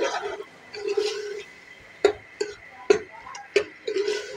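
Steel spoon scraping and knocking against the inside of an aluminium pressure-cooker pot while minced meat (keema) is stirred and fried to dry off its water. Several scraping strokes, with sharp clinks of the spoon on the metal in the second half.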